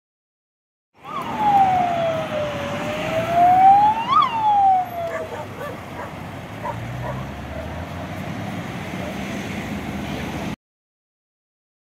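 Fire engine siren on a Renault Midlum on an emergency run, sounding a slow wail: the pitch falls, climbs to a peak about four seconds in, and falls again before fading under the truck's engine and road noise. It starts about a second in and cuts off abruptly near the end.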